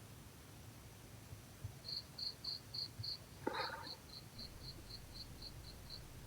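Faint insect chirping in regular high pulses, about four a second, with a short break near the middle. One short, louder noise comes about three and a half seconds in.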